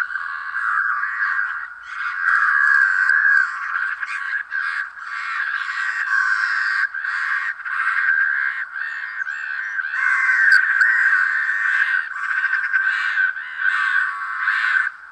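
A dense, continuous chorus of overlapping animal calls.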